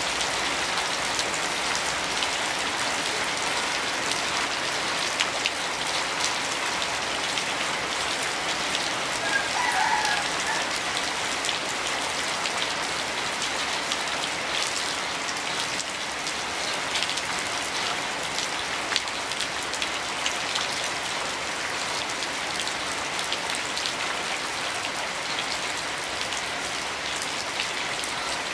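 Heavy rain falling steadily, with many individual drops clicking sharply on a hard surface. A brief faint chirp sounds about ten seconds in.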